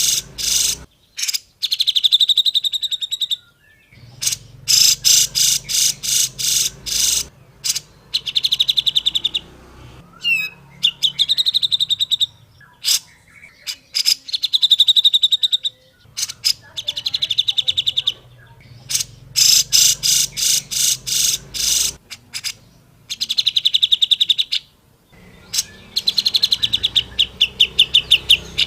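Cucak jenggot (a bulbul) giving loud, rapid rattling chatter. Its phrases are trains of fast, clicking notes that run into buzzy trills, repeated again and again with short breaks between them.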